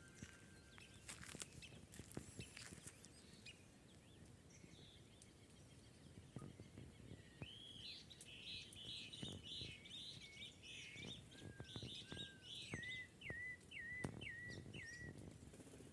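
A bird singing faintly: a quick chattering phrase from about halfway through, then a run of about five short repeated whistled notes near the end. Light scattered clicks and knocks sound now and then.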